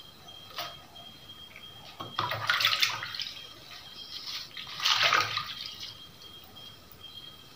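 A hand stirring and lifting wet gotu kola leaves in a basin of water, giving two splashy swishes about two seconds and five seconds in.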